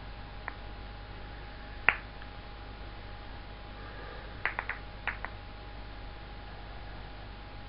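Clear 70 mm acrylic contact balls clicking against each other as they are rolled and passed in the hands: a faint click, then a single sharp click about two seconds in, then a quick run of five clicks a few seconds later.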